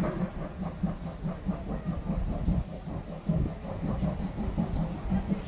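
A train running on the rails: a steady low drone with irregular clatter.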